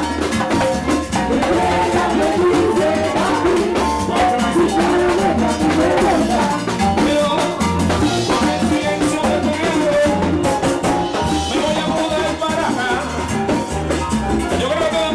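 Live plena music: panderos (hand-held plena frame drums) beating a fast, steady rhythm under a lead singer on a microphone.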